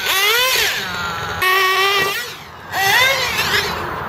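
1:8 scale nitro buggy's small single-cylinder glow-fuel engine revving, its high note rising and falling with the throttle. The note holds steady for a moment about a second and a half in, drops away briefly, then climbs again near the end.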